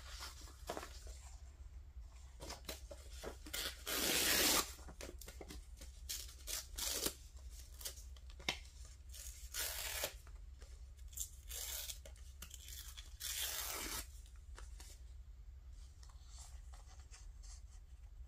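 Paper being torn by hand in a series of separate rips, the longest and loudest about four seconds in, the others shorter.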